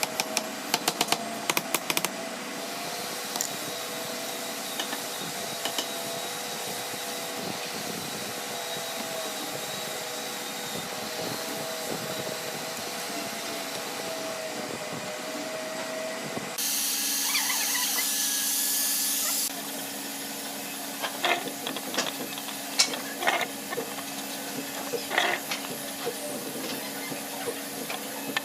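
Workshop power-tool sounds: a small motor runs steadily for most of the first half, its pitch wavering slightly, with a few sharp clicks at the start. After an abrupt change it gives way to a lower hum, a brief loud hiss and then scattered taps and clicks.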